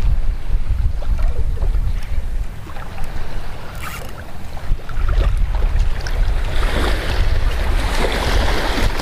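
Wind buffeting the microphone over the sound of surf, with a wave washing in and hissing up the beach during the last couple of seconds.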